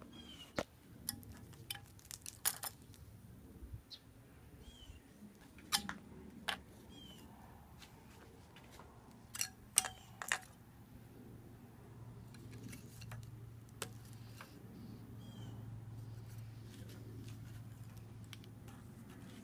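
Scattered sharp clicks and light knocks of FPV quadcopter frames and propellers being handled, in small clusters. A short high chirp repeats every few seconds, and a low steady hum comes up in the second half.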